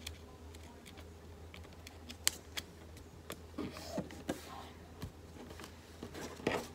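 A sheet of paper being folded and creased by fingertips against a tabletop: scattered small taps and crinkles, with a low steady hum underneath.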